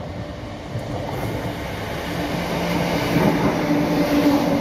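Passenger train approaching and passing close by, its running noise growing steadily louder, with a steady hum setting in about halfway through.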